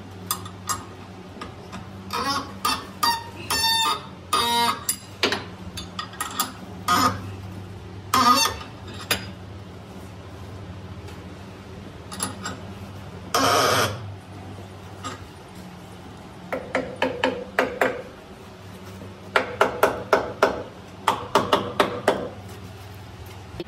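Chickens clucking and squawking in short bursts, with a steady low hum underneath and a brief hiss about halfway through.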